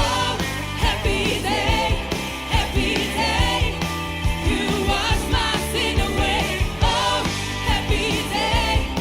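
Live praise and worship music: singing over a band with a steady drum beat and bass.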